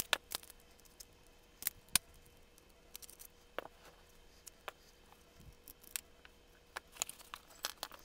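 Scattered sharp clicks and light knocks of a Glock 22 pistol being handled for disassembly: slide and polymer frame worked in the hands, and small steel pins and parts set down on concrete. A faint steady hum runs underneath.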